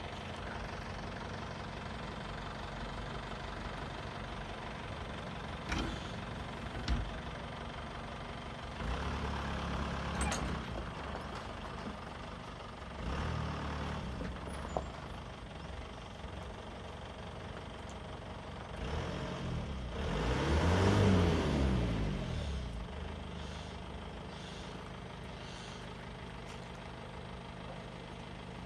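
Heavy diesel engine of earth-moving machinery running steadily, surging several times and revving up and back down once loudly about two-thirds of the way through, with a few sharp knocks in the first half.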